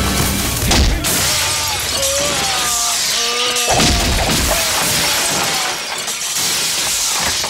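Film fight sound effects: wooden window shutters and glass shattering and splintering as bodies crash through them, a crashing that runs for several seconds from about a second in. Action score music plays underneath.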